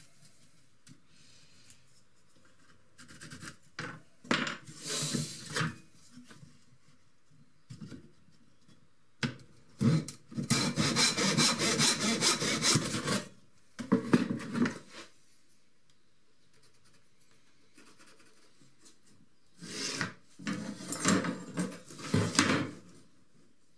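Hand saw cutting a thin strip of 6 mm plywood in spells of quick back-and-forth strokes, the longest and loudest lasting about three seconds near the middle, with shorter spells before and after.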